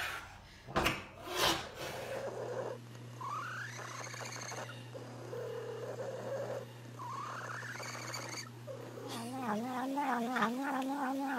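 Domestic cat vocalising: two short rising meows, then near the end a long warbling call whose pitch wobbles rapidly. Two sharp knocks sound about a second in.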